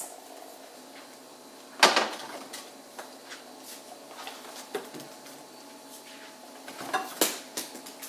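Groceries and containers being handled and set onto refrigerator shelves: a sharp knock about two seconds in, light clinks and taps, and two more knocks near the end, over a faint steady hum.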